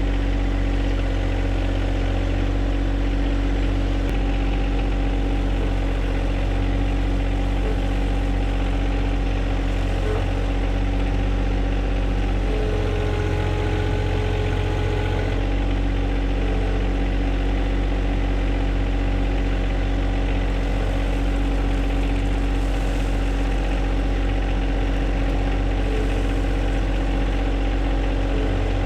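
John Deere 1025R sub-compact tractor's three-cylinder diesel engine running steadily, its note changing briefly about halfway through.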